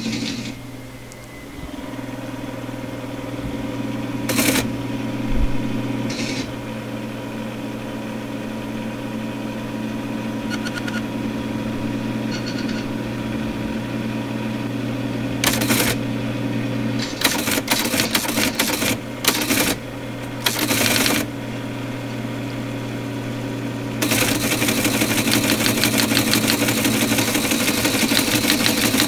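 Teletype Model 33 ASR teleprinter with its motor running steadily, typing and printing in scattered clusters of clicks. From about 24 seconds in it clatters continuously as it prints a line at 110 baud.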